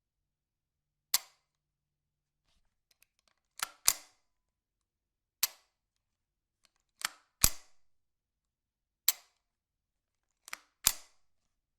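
Ruger 10/22 .22 rifle being handled: about nine sharp mechanical clicks and snaps, three of them in quick pairs, with pauses between.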